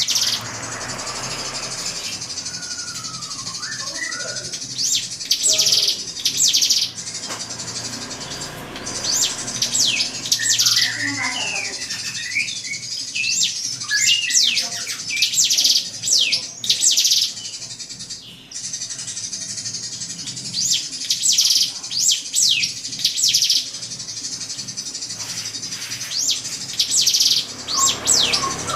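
Drongo (srigunting) singing: runs of sharp, high whistled notes repeated in quick clusters, alternating with lower, warbling phrases.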